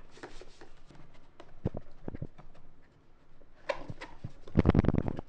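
A few hard knocks on plastic, then a loud rapid clatter near the end, as the car's plastic center console is handled and knocked about while it is being washed.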